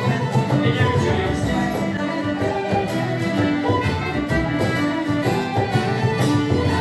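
Traditional Celtic folk tune played live by a small session group: tin whistles carrying the melody over fiddle and strummed guitar.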